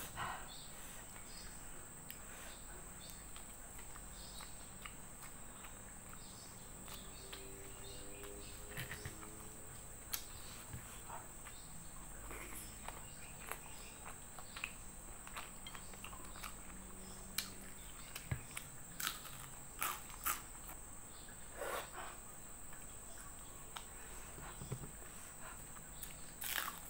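Close-up eating sounds of chicken eaten by hand: chewing, lip smacks and short sharp clicks, more frequent in the second half. A steady high-pitched insect drone runs behind.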